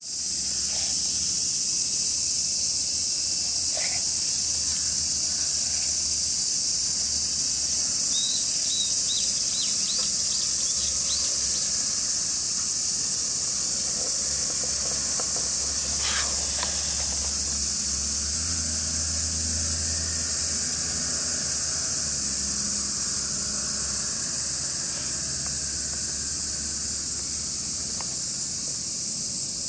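Dense, steady chorus of cicadas, an even high-pitched hiss. A short run of high chirps comes about eight to eleven seconds in.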